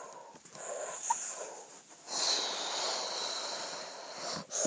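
Two long, breathy rushes of air right against the microphone, a person breathing out heavily: the first about a second and a half long, the second about two seconds.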